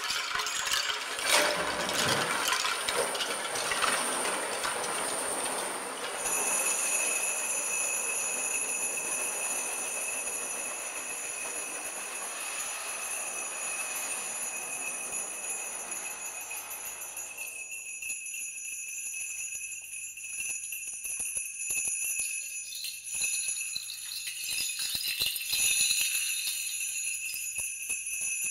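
Free percussion improvisation: a dense clatter of shaken bamboo sticks mixed with jingling small bells. After about six seconds this gives way to a sustained high metallic ringing with light bell jingles and taps.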